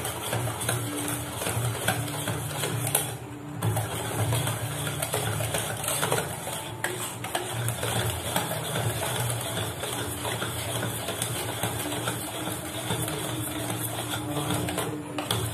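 Biscuit-cake batter being beaten fast by hand in a stainless steel bowl: a continuous quick scraping and tapping against the steel, with a short pause about three seconds in.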